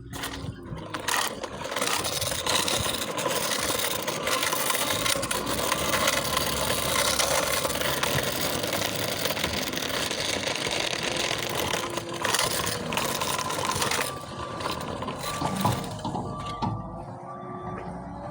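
Scooter riding, a loud steady rush of rolling noise. About 14 seconds in the rush drops away and a loader's reversing alarm beeps over and over, a steady high-pitched beep.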